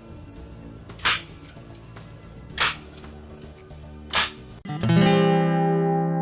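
A staple gun fired three times, about a second and a half apart, driving staples to reinforce adhesive Velcro. Background music runs underneath and ends on a long held chord near the end.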